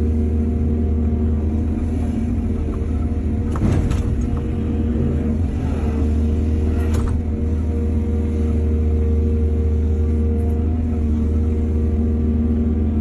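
Excavator diesel engine running steadily with a deep rumble, with two sharp metallic knocks about four and seven seconds in.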